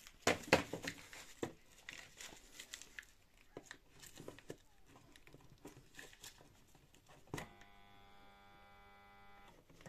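Scattered handling clicks and rustles. About seven seconds in there is a click, and the pool pump's electric motor hums steadily for about two seconds without starting, then cuts off: the motor is still seized and stalls when powered.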